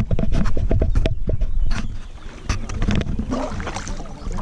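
Kayak paddling on flat water: a quick run of splashes and knocks from the paddle strokes and water against the hull, thinning out about halfway through, over a steady low rumble.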